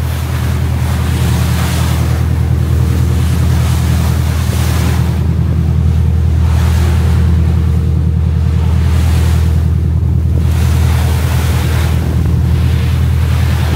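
Boat engine running steadily, with wind and rushing water over it that swell and fade every two or three seconds.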